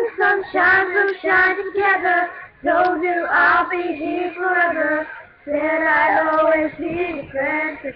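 Young girls singing a pop song in three phrases, with short breaks about two and a half and five and a half seconds in. No instrument is heard with them.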